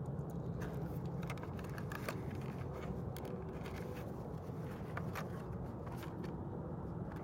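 Scattered light clicks and crackles of Hot Wheels toy cars and their plastic blister-pack packaging being handled, over a steady low outdoor rumble.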